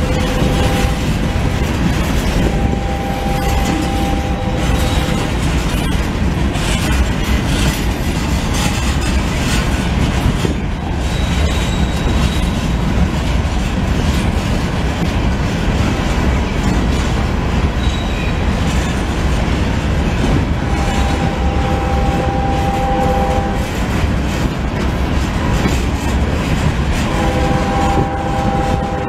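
Coal hopper cars of a Norfolk Southern freight train rolling past close by, a loud, steady rumble of wheels on rail. A steady two-note tone sounds briefly three times: a few seconds in, about two-thirds of the way through, and near the end.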